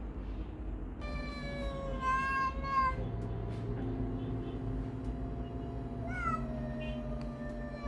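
A cat's long, drawn-out yowls, two of them, with a low steady growl in between: a defensive warning from one cat to another at close quarters.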